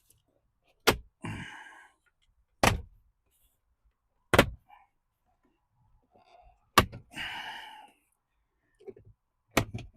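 Plastic centre console trim panel being worked loose by hand: five sharp knocks and clunks as its clips pop, about every two seconds, two of them followed by a short plastic rattle.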